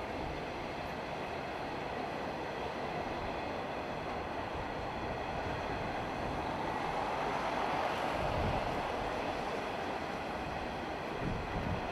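Empty grain hopper wagons rolling by on steel wheels: a steady rush and rumble of wheels on rail that swells a little about eight seconds in, with a couple of low knocks near the end.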